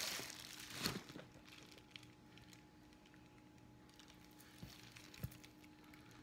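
Plastic wrapping crinkling as it is pulled off a leather handbag's handles, loudest just under a second in. It then goes quiet apart from two soft knocks.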